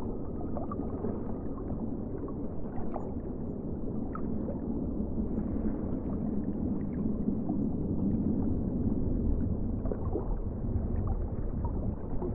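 Steady sloshing and gurgling of water, with scattered faint clicks.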